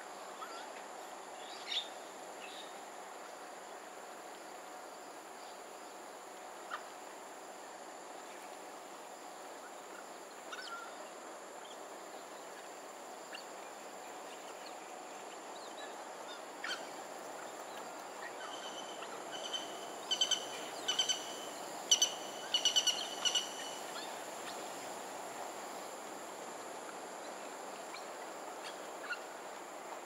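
Steady outdoor ambience with a faint constant high whine, broken by scattered small clicks and, about twenty seconds in, a quick run of short, high-pitched chirping calls repeated several times.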